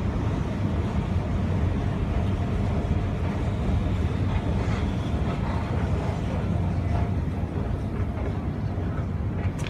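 Moving escalator running with a steady low rumble, with a faint click near the end as the rider reaches the top landing.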